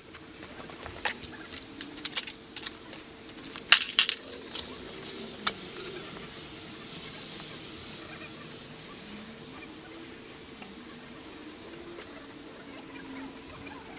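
Sharp metallic clicks and clatter, as of tools and metal jig parts being handled and set, in quick irregular strokes over the first six seconds, loudest about four seconds in. After that only a faint steady hum remains.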